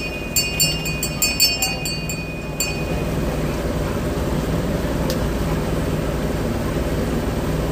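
Boat engine running steadily as the boat cruises. In the first two and a half seconds a quick run of about nine metallic clinks rings out over it.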